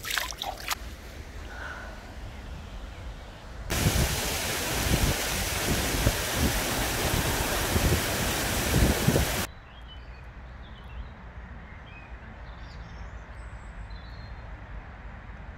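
Shallow stream of running water, loud and rushing for about six seconds in the middle, cutting off abruptly. Before it there are a few light splashes from a hand in the water, and after it a quieter outdoor background with a few faint high chirps.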